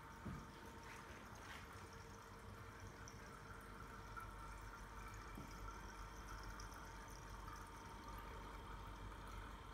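Faint, steady trickling and splashing of water circulating through a reef aquarium, with a steady hum under it. A brief soft knock just after the start.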